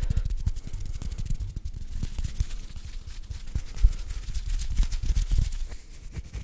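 ASMR hand sounds close to a condenser microphone: fingers rubbing and fluttering in front of it, a dense run of soft clicks and low thumps. Near the end the fingers touch the mic grille.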